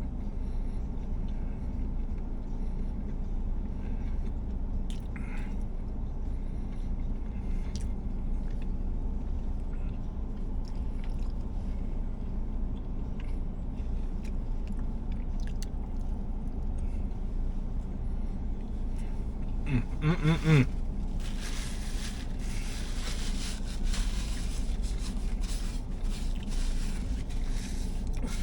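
A person eating: faint chewing and small clicks over a steady low rumble, with a short vocal sound about twenty seconds in.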